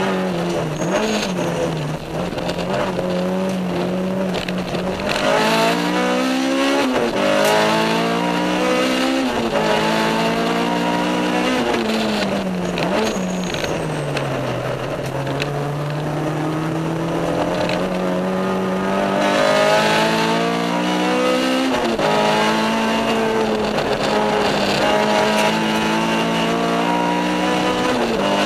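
K20-swapped Honda Civic EG's 2.0-litre four-cylinder engine heard from inside the cabin at racing speed. Its revs climb with sudden drops in pitch at about 7 and 9 seconds, fall away from about 12 to 15 seconds, then climb slowly again before another drop near 22 seconds.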